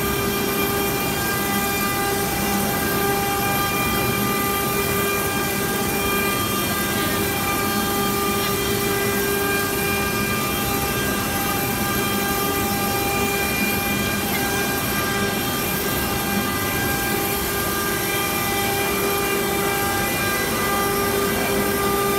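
Stone-carving CNC router spindle running steadily as its bit carves a sandstone relief: a steady whine with overtones over a grinding hiss.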